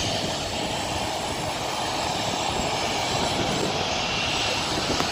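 Jet engines of a Boeing 737 airliner running at low power as it taxis: a steady rushing noise with a faint high whine.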